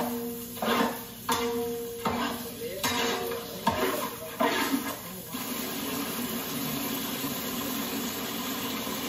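Chicken in masala being stirred in a large cooking pot: the spoon scrapes and knocks against the pot in strokes about every three quarters of a second for the first five seconds, then a steady sizzle of frying.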